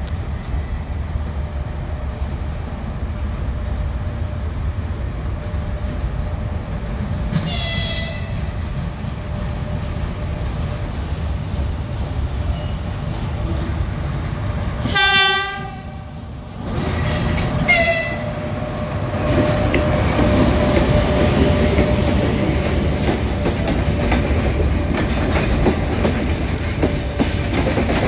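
EP1 electric locomotive approaching with a passenger train over a steady low rumble. It sounds a short horn toot about eight seconds in, a louder horn blast lasting about a second near fifteen seconds, and another short toot near eighteen seconds. After that the passing coaches grow louder, their wheels clicking over the rail joints.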